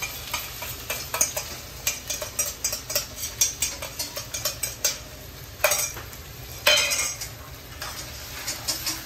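Metal spoon clinking and scraping spice paste out of a steel bowl into a hot wok, over a steady sizzle of frying onions and potatoes, then a metal spatula stirring and scraping in the wok. Two louder hisses come a little after halfway.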